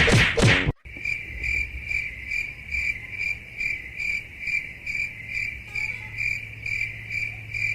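A loud snatch of music cuts off under a second in. It is followed by a steady, high, rhythmic chirping at about two chirps a second over a faint low hum.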